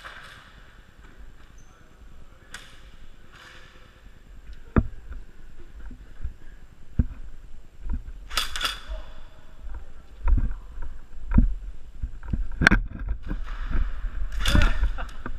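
Scattered sharp knocks and clicks a second or two apart during an airsoft close-quarters game, joined in the second half by frequent heavy thuds. Two loud bursts of shouting come about halfway through and near the end.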